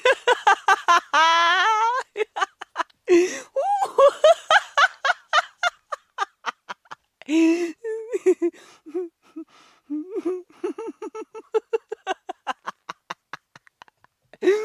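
A woman laughing hard in rapid bursts, with sharp gasping in-breaths between the fits. In the second half the laughter drops lower into quick, breathless pulses.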